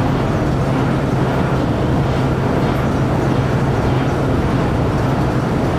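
Empty grain leg (bucket elevator) running unloaded at slow inspection speed, about 14% of full speed under the soft starter: a steady mechanical rumble with a constant low hum from its 75 HP drive motor.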